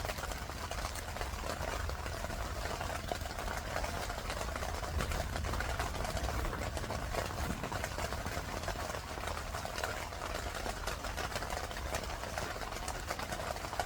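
Steady rain pattering on a tent, a dense run of fine drop ticks over a constant low hum.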